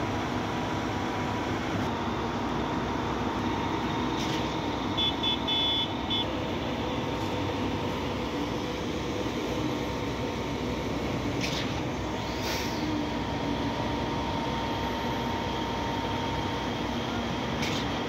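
Steady drone of heavy diesel engines from concrete mixer trucks and a truck-mounted concrete pump running on site. A brief run of high-pitched beeps comes about five seconds in, and a few short clicks are scattered through it.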